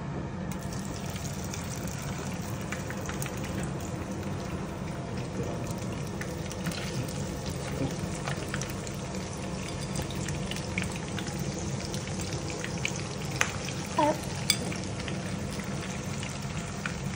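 Chopped roast pork (lechon) sizzling and crackling in a hot frying pan as pieces are dropped in by hand, a steady frying hiss with small pops. About two-thirds of the way through there is one brief, louder squeak.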